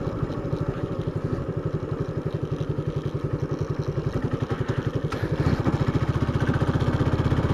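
Motorcycle engine running at low speed with a steady, even pulsing beat, getting louder about five seconds in as the throttle opens.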